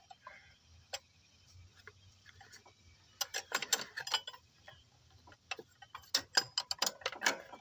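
Socket ratchet clicking in quick irregular runs, about three seconds in and again from about six seconds, with a few single metal clicks before, as it is worked on the serpentine belt tensioner bolt.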